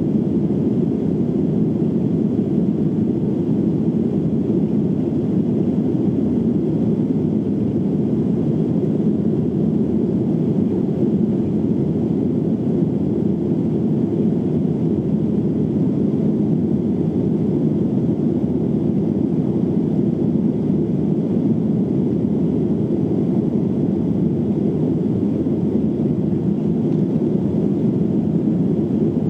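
Steady low cabin noise of an airliner in flight: engine and airflow noise, even and unbroken.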